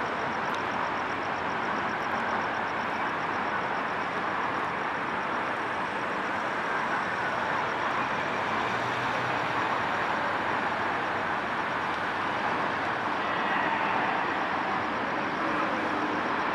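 Steady noise of a harbour ferry under way: engine rumble and rushing water blended into one even hiss, with no separate events.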